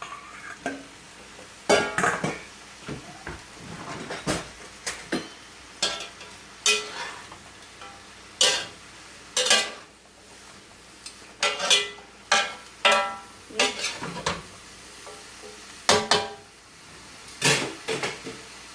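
A cooking utensil clanks and scrapes against a pan while stir-fried vegetables are tossed. About a dozen irregular knocks, each with a brief metallic ring, sound over a faint sizzle.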